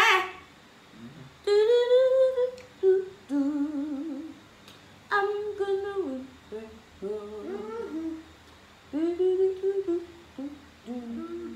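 A person humming a tune in a string of short phrases, with held, wavering notes and brief pauses between them.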